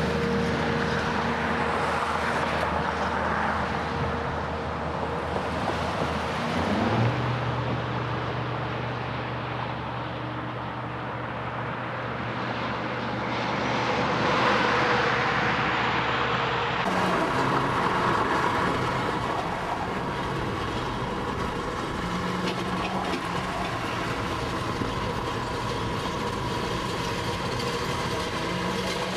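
Heavy-haul rig driving by on the highway: the tractor's Caterpillar diesel engine drones and the many trailer tyres hiss, loudest as it passes. After a sudden change the rig's running is heard from inside a car driving alongside, mixed with that car's own steady road noise.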